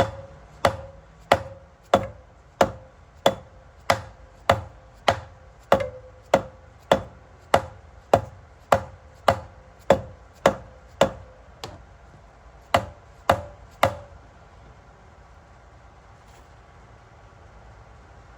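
Hammer striking metal over and over, about one and a half blows a second, each with a short ring, around twenty strikes with a brief pause before the last three. It is the jet pump housing being driven onto the shaft and bell housing to bring the bolt holes into line.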